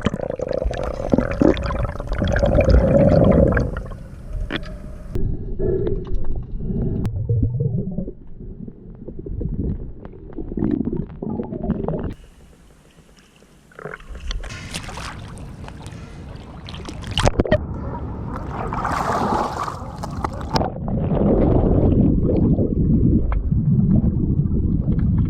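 Water sloshing and gurgling around a GoPro as divers get into the water and swim, with uneven low splashing swells and a brief lull partway through.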